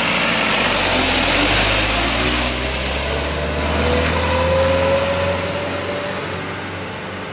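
Heavy truck engine running close by, a deep rumble that swells and then rises in pitch as it revs, fading off near the end.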